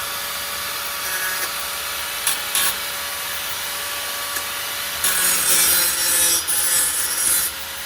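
Angle grinder with a cutting wheel running with a steady whine, its wheel scraping on exhaust pipe steel in a few short touches, then grinding hard with a loud harsh hiss for a couple of seconds near the end, the whine dipping slightly under load.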